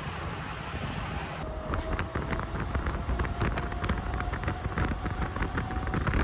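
Coach bus on the move, heard from inside: low road rumble with a steady whine that rises slightly in pitch and a patter of small rattles. It starts about a second and a half in, after a short stretch of wind noise outdoors.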